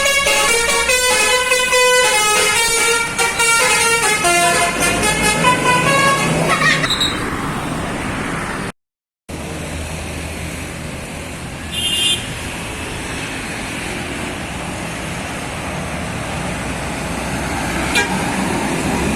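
Bus 'basuri' telolet horn, the multi-tone musical air horn of an Indonesian tour bus, playing a tune of stepping notes for about six seconds and then stopping. Steady vehicle noise follows, with a short high toot about twelve seconds in.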